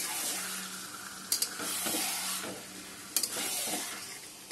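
Metal spatula stirring and scraping chicken pieces through sizzling masala in a metal kadai, with two sharp knocks of the spatula against the pan, about a second and a half in and again about three seconds in.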